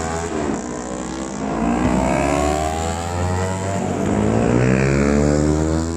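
Yamaha R25 parallel-twin with an aftermarket full-system exhaust, accelerating hard: the engine note climbs in pitch, drops at each upshift and climbs again, several times over.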